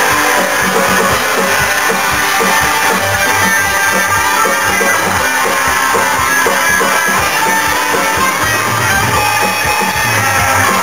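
Rock instrumental on two electric guitars, a Les Paul-style and a Telecaster-style, played loud through an amp, over a steady beat of low thumps.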